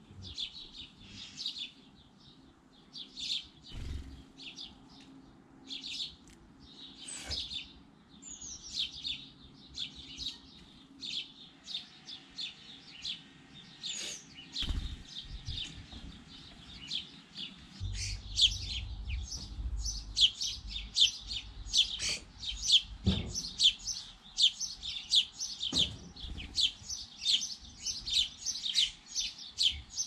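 Sparrows chirping over and over in short, quick chirps that come thicker in the second half, with a low rumble joining about eighteen seconds in.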